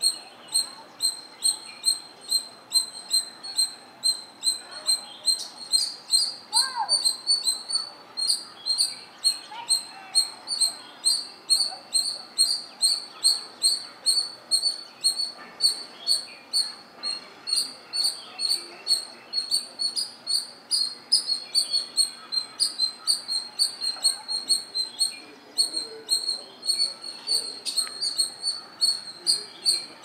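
A small creature's high, even-pitched chirp repeated steadily about three times a second, with a few fainter calls beneath it.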